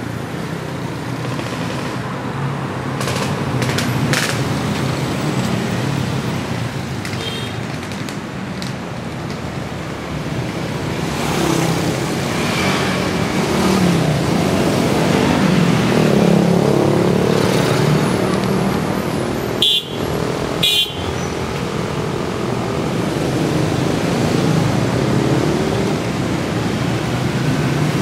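Road traffic with motor engines passing, swelling louder for a while in the middle.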